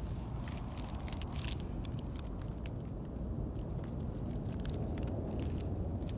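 Wind rumbling on the microphone, with a cluster of sharp clicks and crackles in the first second and a half.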